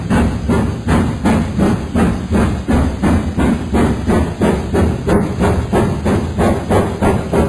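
GWR Castle class four-cylinder steam locomotive working, its exhaust beats coming steadily at about two and a half a second over a low rumble.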